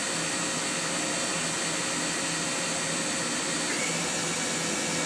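The 10,000 RPM inline direct-drive spindle of a 1996 Haas VF0 CNC vertical machining center runs steadily at mid speed during a stepped speed test, with an even whir and hiss that is nice and quiet, the sign of a healthy spindle. A faint higher whine comes in near the end.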